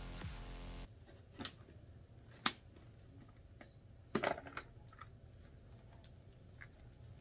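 Shoei Neotec 2 modular helmet's chin bar being pulled down and latching, heard as a few light plastic clicks and handling sounds. The sharpest click comes about two and a half seconds in, and a quick cluster follows about four seconds in. Background music stops under a second in.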